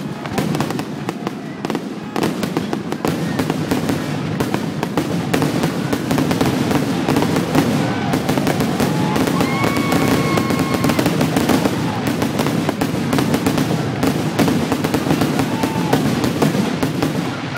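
Fireworks finale: a rapid, unbroken barrage of bangs and crackles from many shells bursting at once.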